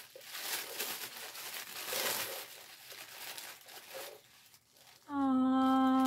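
Paper crinkling and tearing as a gift is unwrapped by hand, in uneven rustles. About five seconds in, a loud, steady held tone starts over it and stays at one pitch.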